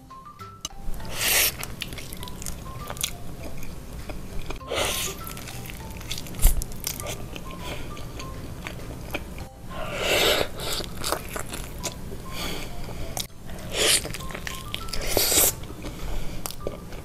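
Close-up eating sounds of a person biting into sauce-coated fried chicken and chewing it, with five short, louder bites spread through the chewing.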